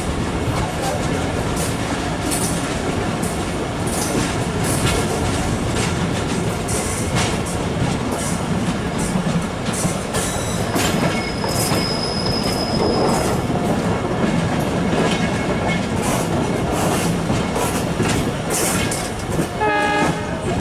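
Passenger train coaches running at speed, heard from the open doorway: a steady rumble with regular clicks of the wheels over the rail joints. A thin high squeal runs for a few seconds in the middle, and a short pitched sound comes near the end.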